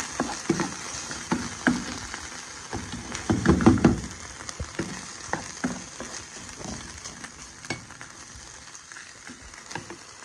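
Diced chicken breast and liquid cream sizzling in a hot non-stick frying pan while a wooden slotted spatula stirs and scrapes through it. The strokes are loudest about three to four seconds in, and the sizzle dies down toward the end.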